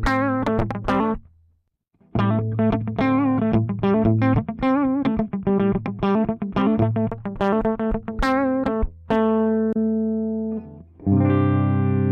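Electric guitar played through a DigiTech CabDry cabinet-simulator pedal: a picked single-note riff that breaks off briefly about a second in, resumes with some notes shaken in vibrato, then gives way to two held, ringing chords near the end.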